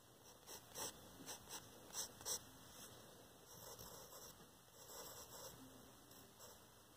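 Faint scratching of a pencil on paper: a few short, sharper strokes in the first two and a half seconds, then a softer run of scratchy strokes in the middle.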